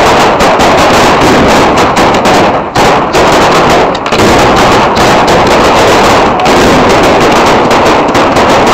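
A dense barrage of firecracker strings exploding all around at close range, very loud, the bangs running together into a continuous crackle. It eases briefly about two and a half and four seconds in.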